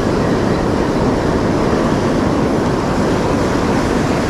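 Steady rush of breaking surf and foaming wash at the shoreline, with a dense low rumble.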